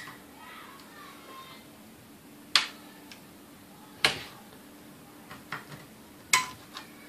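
Small metal tool scraping, then clicking and tapping against the motor end of a Sunbeam Mixmaster Model 12 while its resistor is worked out: a few sharp separate clicks a second or two apart.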